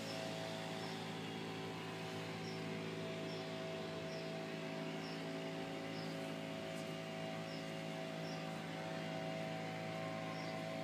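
Pressure washer running in the background: a steady drone of several hum tones with hiss over it.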